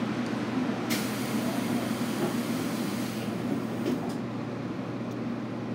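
Standing 811 series electric train with its equipment humming steadily. About a second in, the pneumatic doors shut with a knock and about two seconds of hissing air, closing for departure; a couple of faint clicks follow.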